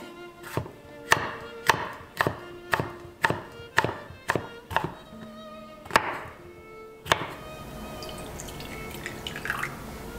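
Chef's knife slicing a bell pepper into strips on a wooden cutting board: crisp cuts ending in a knock of the blade on the board, about two a second, stopping about seven seconds in. Gentle violin background music plays underneath.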